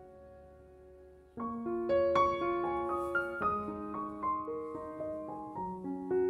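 Soft background piano music: a held chord fades away, then about a second and a half in new notes and chords come in and carry on.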